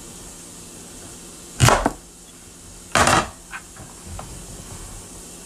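Two sharp chops about a second and a half apart: a large kitchen knife striking down through a whole avocado, pit and all, onto a cutting board. A few light knocks follow.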